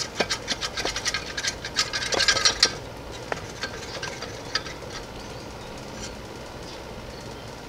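Small metallic clicks and scrapes from a nut being worked off a VW 36HP crankcase stud by hand. They come in a quick, dense run for about two and a half seconds, then only the odd click.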